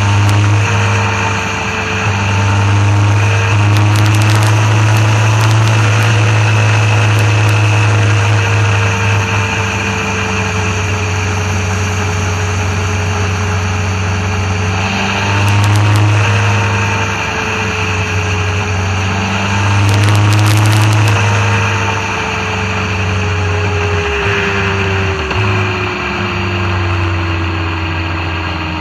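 Motorcycle engine running under way, heard from a camera mounted on the bike, with road and wind noise. Its note rises and falls as the rider opens and closes the throttle, with louder pulls about four, fifteen and twenty seconds in.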